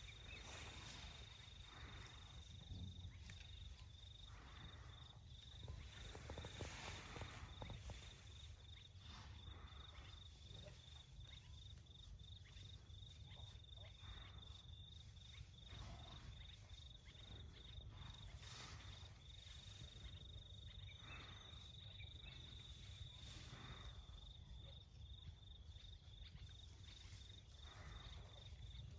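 Quiet dawn ambience: an insect trilling steadily at a high pitch, broken into rapid pulses at times, with soft irregular rustles of dry grass as an elephant calf forages through it.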